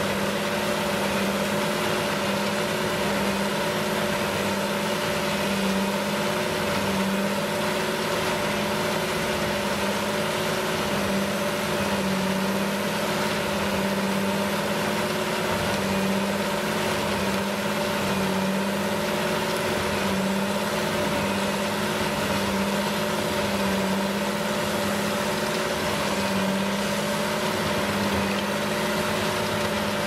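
John Deere 8360R tractor's six-cylinder diesel running steadily under load, driving an Eschlböck Biber 84 wood chipper that is chipping brush and blowing the chips into a trailer. A steady drone, with a low hum that swells and fades about once a second.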